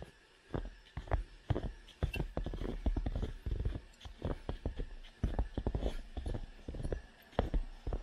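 Footsteps crunching through snow at a steady walking pace, each step a cluster of short crackles.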